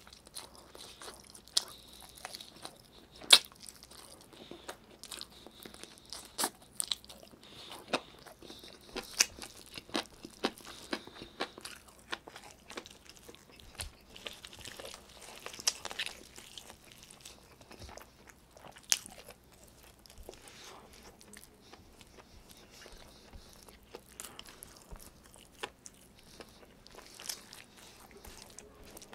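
Eating sounds of a man biting and chewing chicken adobo with his hands: many sharp, irregular clicks and crunches of meat and skin being bitten and chewed, busiest in the first twelve seconds, with the loudest bite about three seconds in, then sparser chewing and picking at the plate.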